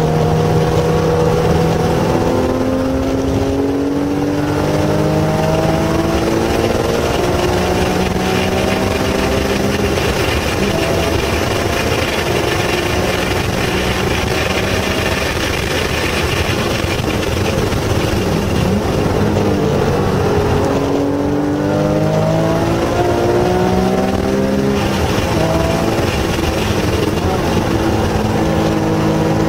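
Porsche 911 GT3 RS's naturally aspirated flat-six engine heard from inside the cabin at full throttle on track, its pitch climbing through each gear with a brief break at a shift about four seconds in. Around twenty seconds in the engine note drops as the car slows for the corners, then climbs again as it accelerates out.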